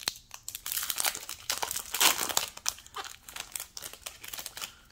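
Trading-card booster pack wrapper crinkling and tearing as it is ripped open by hand: a run of sharp crackles, loudest about two seconds in.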